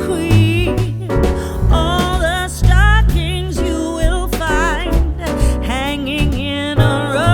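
Background music: a song with a singing voice over a steady bass line and beat.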